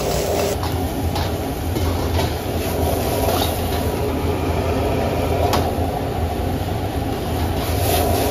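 Steady roar of a high-flame gas wok burner, with stir-fry sizzling in the wok and a metal ladle clinking against the wok a few times.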